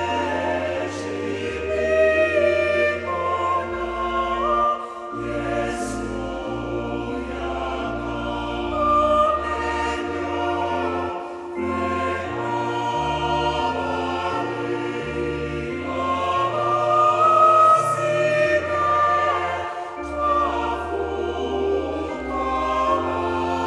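Mixed choir singing a hymn in Luganda in harmony, women's and men's voices together in sustained, slow-moving notes.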